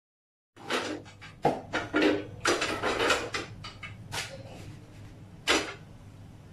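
A flat griddle pan (tawa) knocking and scraping on a gas stove's grate as parottas are tossed and flipped on it. The sound starts suddenly about half a second in as a string of sharp clatters, the loudest about a second and a half, two and five and a half seconds in, over a steady low hum.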